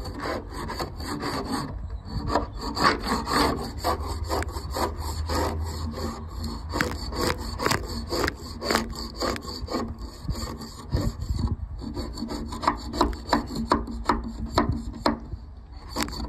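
Hand scraper scraping old bitumen off a steel narrowboat hull in quick repeated strokes, about two a second, the coating crumbling away down to bare metal.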